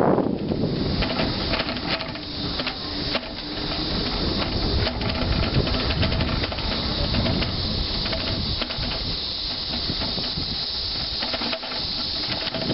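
Bicycle ride heard from a handheld camera: a steady hiss of wind on the microphone and tyres rolling on concrete, with small scattered clicks and rattles from the bike.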